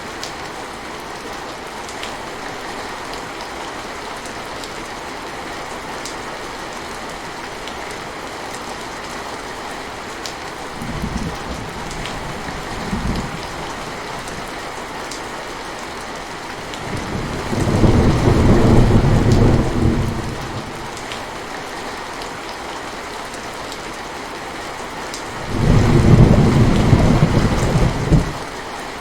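Steady rain falling, with rolls of thunder: two short low rumbles about a third of the way in, then two longer, louder rumbles past the middle and near the end.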